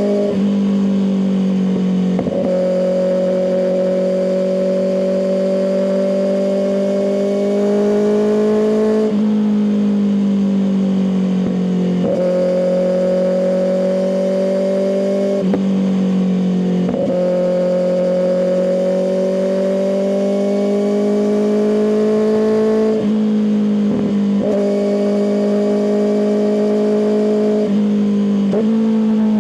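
Kawasaki ZX-6R's inline-four engine running through an M4 aftermarket exhaust while being ridden. It holds a steady pitch that slowly rises and falls, broken every few seconds by a short dip and jump in pitch at each gear change.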